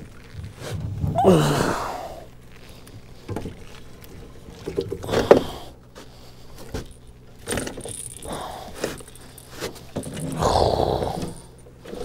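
A big catfish being hauled in a landing net into a boat: knocks, rattles and scrapes of the net frame and hull, with strained grunts of effort, one falling groan about a second in, and heavy breathing.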